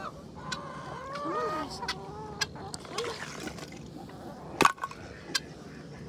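Barnyard fowl calling: several short squawks that rise and fall in pitch, with scattered clicks and a sharp knock late on.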